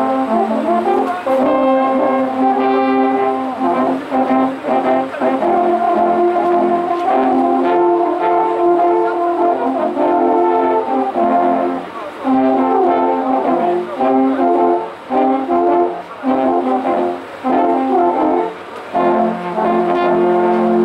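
An ensemble of alphorns playing a tune in several parts, sustained chords moving from note to note, with short breaks between phrases and a long held chord near the end.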